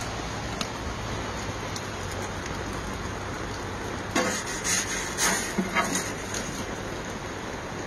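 Steady hiss of rain falling on an umbrella and a wet deck, with a cluster of louder taps about four to six seconds in.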